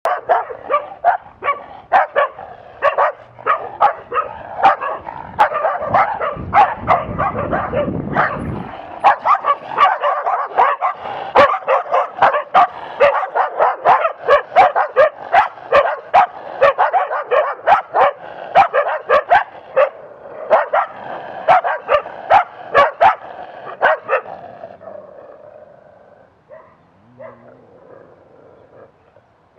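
Several dogs barking rapidly and continuously at a passing cyclist, the barks overlapping, until the barking dies away about 24 seconds in.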